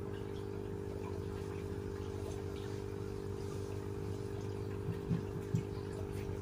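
Water trickling and dripping over a steady low hum, with two brief low thumps about five seconds in.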